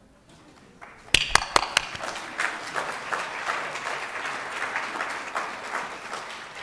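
Audience applause. A few sharp claps close to the microphone come about a second in, then many people clap together for several seconds.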